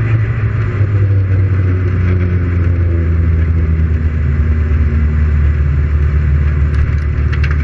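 Autobianchi A112 prototype's Suzuki Hayabusa inline-four motorcycle engine running steadily at low revs, heard from on board as the car rolls slowly.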